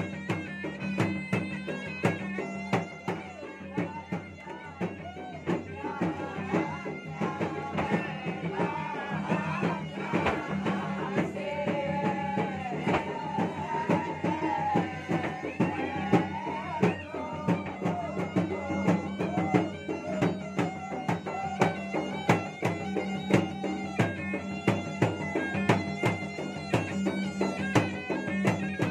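Makassarese gendang ensemble playing traditional music: two double-headed gendang drums are beaten in a fast, dense rhythm with hand and stick. A wind instrument plays a wavering melody without a break over a steady ringing gong.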